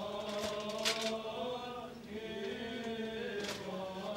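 Greek Orthodox (Byzantine) chanting: long held sung notes that bend slowly in pitch, with a few sung 's' sounds.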